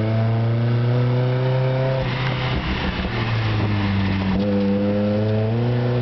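Nissan D21 pickup's engine heard from inside the cab, revs rising as it pulls for about two seconds. It then eases off for a couple of seconds through the curve, and pulls again with revs climbing from a little past four seconds in.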